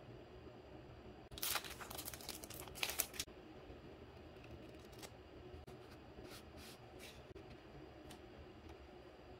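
Clear plastic sleeve crinkling for about two seconds as a stack of stiff paper cards is pulled out of it. This is followed by several short, papery swishes as the cards are fanned and slid apart.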